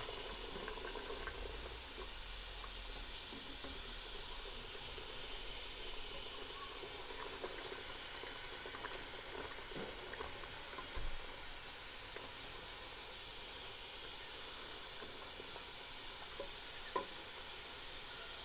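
Pressure-cooked mutton curry with onion, tomato and spices sizzling quietly in a pot at the start of its bhunai (frying) stage: a steady low sizzle with a couple of faint knocks, about 11 and 17 seconds in.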